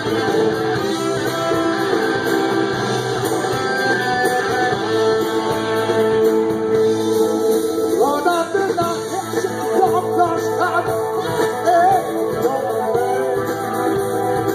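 A rock band playing live, with electric guitars, keyboard and drums; a male singer comes in about halfway through.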